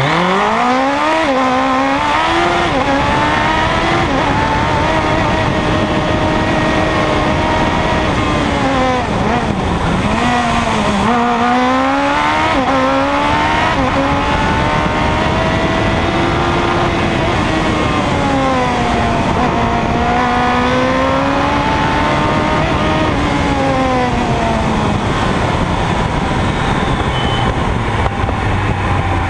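Supercharged Suzuki Hayabusa inline-four motorcycle engine in a DSP single-seater hillclimb car, heard onboard at hard throttle. Its pitch climbs and drops repeatedly with gear changes and braking for corners, then settles lower near the end as the car slows.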